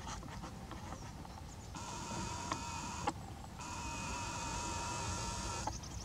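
Nikon Coolpix P900's zoom lens motor whining in two steady runs of about two seconds each, with a short click and pause between them about three seconds in, over a low rumble.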